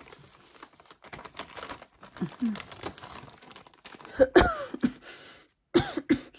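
Plastic zip-top bags crinkling and rustling as they are handled and opened. Brief wordless voice sounds come in about two seconds in, louder around four seconds, and again near the end.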